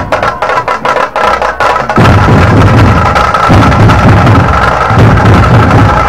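Dhol-tasha drumming: rapid sharp strokes for the first two seconds, then, from about two seconds in, a fuller and denser drumming with deep dhol beats.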